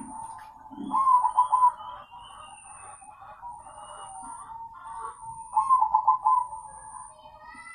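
Crossbred zebra doves (perkutut) cooing: two loud bursts of the rapid, stuttering coo phrase, one about a second in and one past the middle, over softer steady cooing from other doves. Thin chirps and a short high note repeating about once a second sound behind them.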